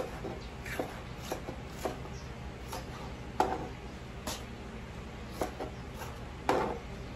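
Kitchen knife slicing tomatoes on a plastic cutting board: short, irregular taps of the blade striking the board, roughly one a second, with one louder knock partway through.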